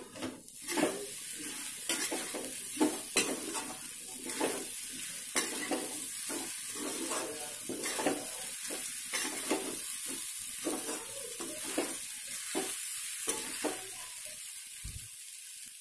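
Sago pearls, potatoes and peanuts frying in a pan, sizzling steadily while a metal spatula stirs and scrapes through them in irregular strokes; the stirring eases off near the end.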